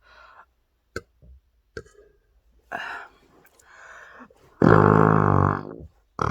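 A woman's long, low-pitched burp into a doubled-up pillow, starting about four and a half seconds in and lasting about a second, after a few faint clicks and breaths.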